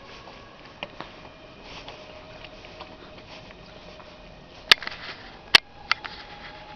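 Quiet room tone with a faint steady hum, broken by a few sharp clicks: two soft ones about a second in, then three louder ones past the middle, the loudest pair a little under a second apart.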